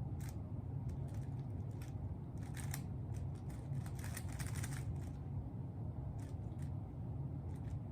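Rubik's cube being turned by hand: scattered clicks and clacks of its plastic layers, in quick runs about two and a half and four seconds in, over a low steady background hum.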